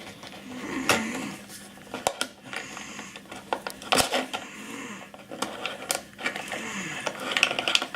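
Plastic toy parts being lifted out of their box and handled, giving scattered clicks and knocks.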